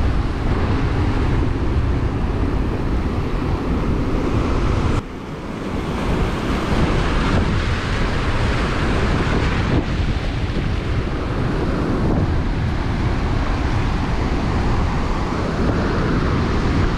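Strong wind buffeting the microphone over breaking surf, a continuous loud rush of noise. It drops suddenly for a moment about five seconds in, then builds back.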